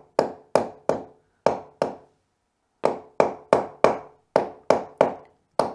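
Hammer tapping on a wooden block stuck to a laminate floor plank: light, even strikes about three a second, each with a brief ring, in two runs with a short pause between. The taps are knocking the plank, whose click-lock joint is broken, back to close the gap between planks.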